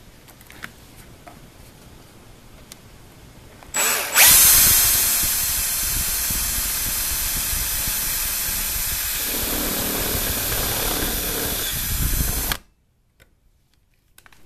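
Cordless drill starting about four seconds in and running at steady speed with a high motor whine, drilling into a sheet-aluminium control-box panel. It runs for about eight seconds, then stops abruptly.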